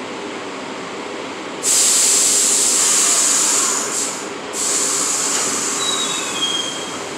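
A stopped New York City subway train lets out a sudden loud hiss of air about one and a half seconds in. It breaks off for a moment about four and a half seconds in, then hisses again: the air brakes releasing before the train pulls out. A few faint short squeals come near the end.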